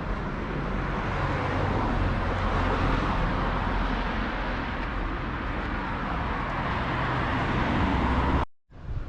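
Road traffic: cars passing, a steady rush of tyre and engine noise that swells and fades twice. It cuts off abruptly near the end.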